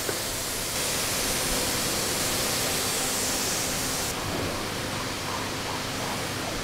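Steady hiss of workshop background noise. It is brighter and a little louder from about one second in until about four seconds in.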